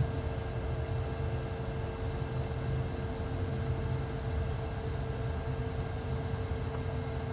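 Steady low rumble with a constant hum in a Boeing 737-800 full flight simulator cockpit: the simulated airliner rolling out on the runway and slowing under manual braking, with faint high ticks scattered through it.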